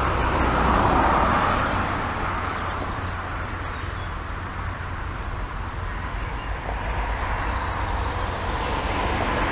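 Wind gusting through forest trees, strongest about a second in, over a steady low rumble of wind on the camera microphone despite its wind reduction. A few faint bird chirps.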